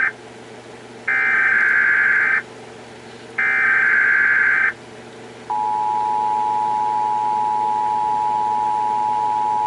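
Emergency Alert System tones. The end of one SAME header data burst is followed by two more buzzy digital data bursts, each about a second long. From about five and a half seconds in, the steady two-tone EAS attention signal sounds.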